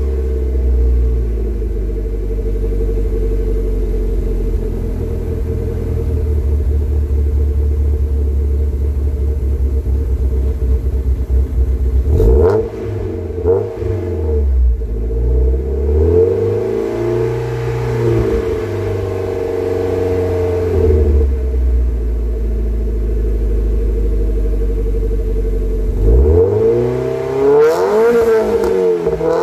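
A stock 1.8-litre four-cylinder Mazda Miata engine heard through a Borla aftermarket exhaust at the tailpipes. It idles steadily, is revved briefly about twelve seconds in, then held at higher revs for several seconds and let back down to idle. Near the end it is blipped a few times.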